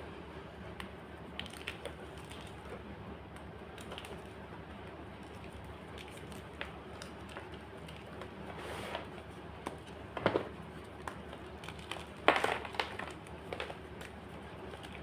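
White gym chalk crunching and crumbling, with scattered small cracks and two louder bursts of crunching about ten and twelve seconds in, over a steady background hiss.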